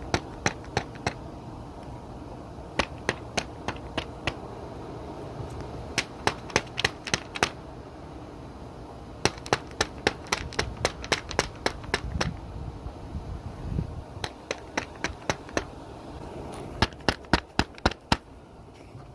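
Runs of sharp clicks, about three a second and six or more in a row, coming again every few seconds over a steady low hum.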